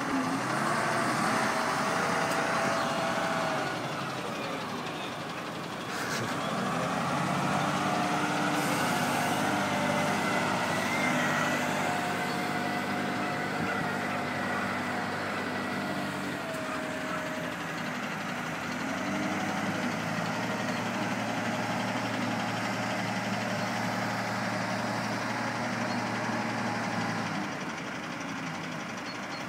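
O&K L25 wheel loader's diesel engine running under work, its note rising and falling several times as it revs up and eases off.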